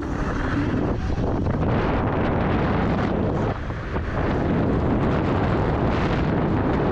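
Wind buffeting the helmet-mounted action-camera microphone while riding a Dualtron Thunder electric scooter at speed. The rush is loud and steady, easing briefly about three and a half seconds in.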